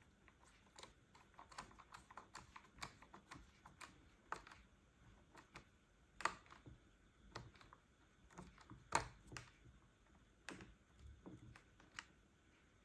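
Faint, irregular small clicks and ticks of a precision screwdriver turning the screws that hold a Dyson V11 battery pack, with a few sharper clicks about six, nine and twelve seconds in.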